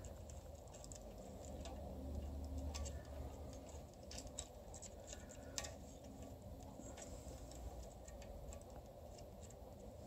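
Faint, irregular small metallic clicks and taps: a steel nut held on a magnetized screwdriver tip knocking against a stud and the oil pan as it is worked onto the stud.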